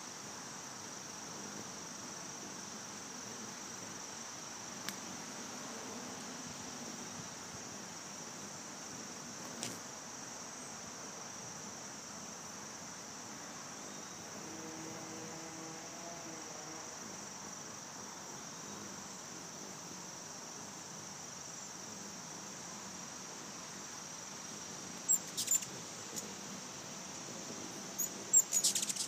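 A steady, high insect trill like crickets runs throughout. Twice near the end come a few short, sharp high chirps, the loudest sounds, from ruby-throated hummingbirds squeaking as they dart about the feeder.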